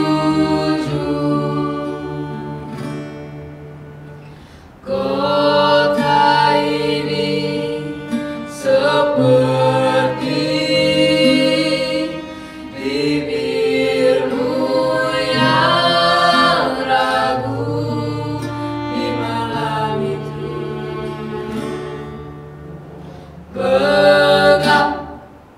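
Sung setting of an Indonesian poem: female voices singing held, slow phrases over acoustic guitar and violin, with a loud final phrase near the end that breaks off.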